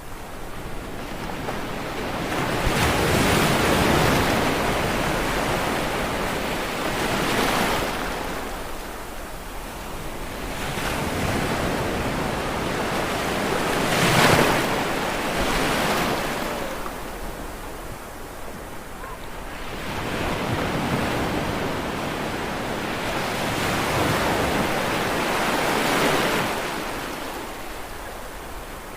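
Ocean waves breaking and washing up a shore. Each wave swells into a rush of surf and then drains away, one every few seconds.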